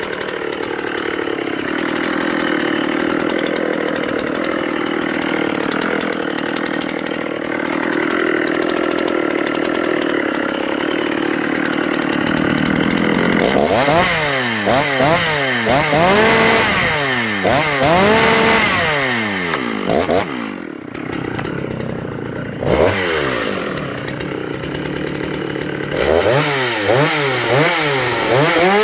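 Dolmar PS-7900 two-stroke chainsaw engine catching and running steadily for about thirteen seconds, then revved up and down over and over, rising and falling about once a second.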